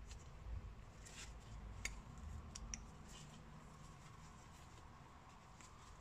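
Faint handling sounds: a few light clicks and taps as gloved hands turn a metal brake caliper over and work in its piston bore, over a low steady room hum.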